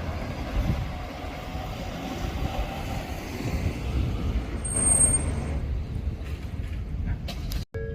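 Odakyu Line electric train passing close by: a steady rumble of wheels on the rails, with a brief high squeal about five seconds in.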